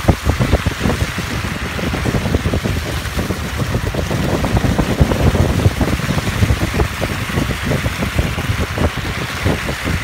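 Wind buffeting the microphone: a loud, irregular low rumble full of rapid uneven thumps, with a steady hiss above it.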